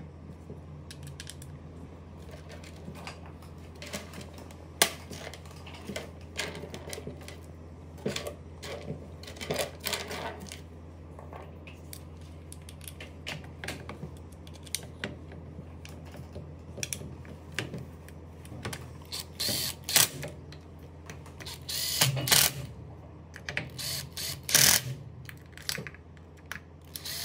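Clicks, taps and light scrapes of plastic parts and wire connectors being handled as a cordless hedge trimmer's motor and gear housing are put back together, over a steady low hum. In the last third come a few louder short bursts as a cordless driver is set to a screw in the housing.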